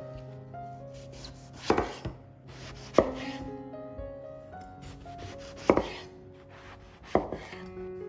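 A kitchen knife cutting down onto a cutting board in about five separate, unhurried strokes, spaced unevenly a second or more apart.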